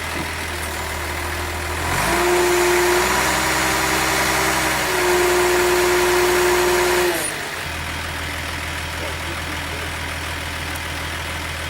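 Truck engine idling, then held at higher revs for about five seconds from about two seconds in, with a steady higher-pitched note, before dropping back to idle.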